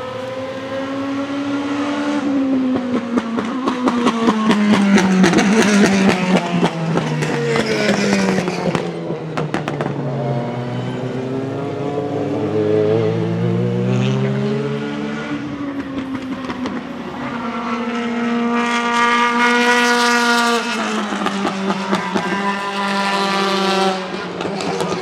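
Mercedes-AMG C63 DTM race car's 4.0-litre V8 on track. Its note falls for several seconds under deceleration, with rapid crackling from the exhaust. It then climbs again under acceleration, holds high, and drops near the end.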